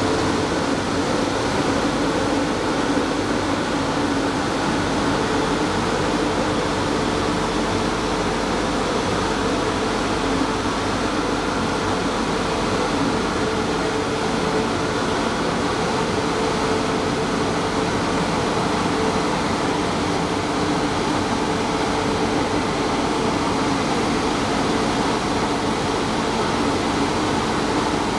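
Risense CF 350 rollover car wash running its cycle over a van: a steady, even machine whir with a low hum from its motors, brushes and blowers.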